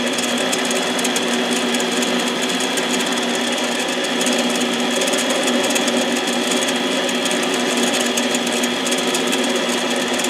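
Harbor Freight 7x10 mini lathe running steadily, its motor and gears giving a steady whine, while it turns a chainsaw piston during a light finishing pass on the piston top.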